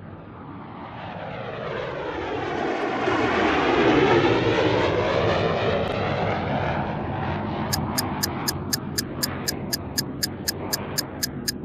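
Intro sound effects: an aircraft flyby that swells to a peak about four seconds in and then fades. From about eight seconds in there is rapid film-projector ticking, roughly four ticks a second.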